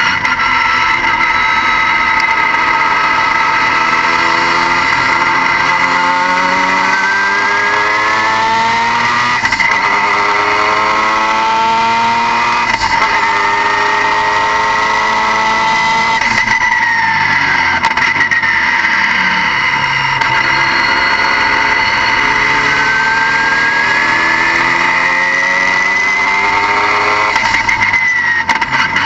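Car engine running under load, its pitch climbing repeatedly and dropping back, as in accelerating through gears, over a steady high whine.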